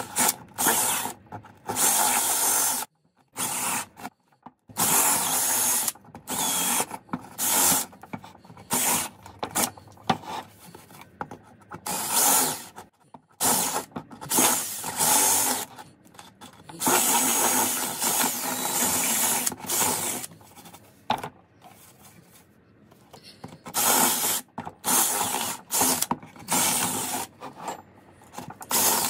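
Ryobi cordless drill with a twist bit boring a ring of small holes through a white-faced wooden board. It runs in many short on-off bursts, with a longer run a little past the middle.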